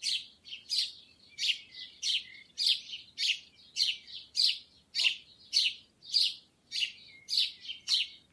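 Sparrow chirping over and over at an even pace, a little under two short, high chirps a second.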